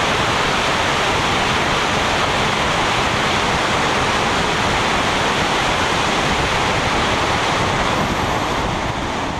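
Steady rush of wind over a camera's microphone mounted outside a car at speed, with no engine note standing out. It fades near the end.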